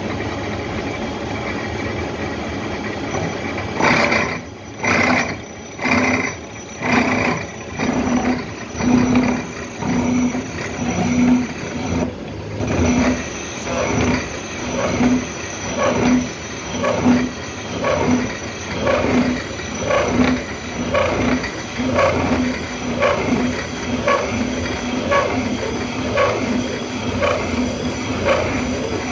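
Horizontal milling machine's toothed disc cutter cutting clutch teeth into a metal workpiece. It is a steady machining noise that, from about four seconds in, swells and fades in a regular rhythm, roughly once a second.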